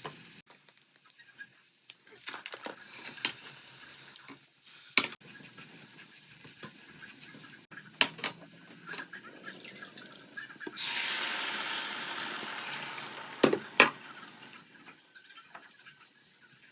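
Cooking at a pan: soft sizzling with scattered knocks of a utensil against the pot, and about two seconds of rushing, pouring water near the middle.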